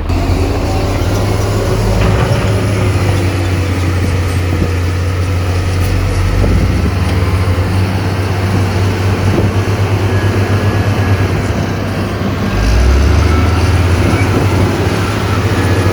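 Heavy diesel engine of earthmoving equipment running steadily, a loud low rumble, growing louder and deeper near the end as the engine comes under more load.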